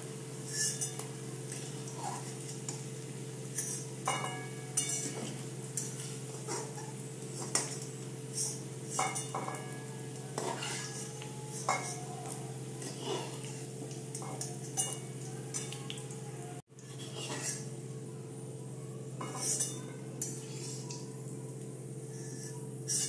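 Metal spatula scraping and clinking against a kadai (wok) in irregular strokes as fried potato chunks are lifted out of hot oil, with a light sizzle of the oil. A steady low hum runs underneath.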